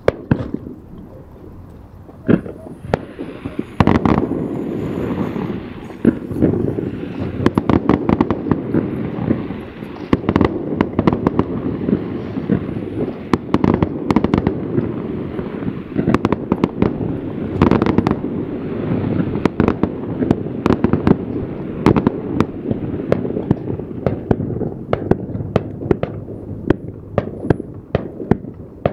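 Fireworks bursting: many sharp bangs and crackles over a continuous rumble, thickening into a dense barrage about four seconds in.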